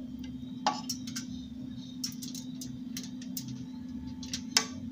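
Scattered light clicks and taps of a utensil and crinkling foil as salsa is spooned over chicken on aluminium foil, the sharpest tap near the end, over a steady low hum.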